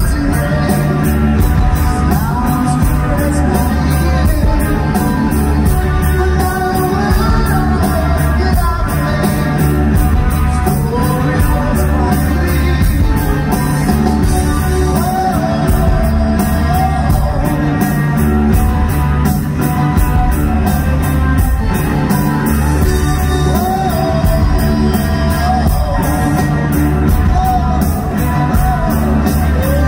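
Live rock band playing loudly: a male singer over electric guitars and a steady drumbeat with cymbals, heard from the audience in a large hall.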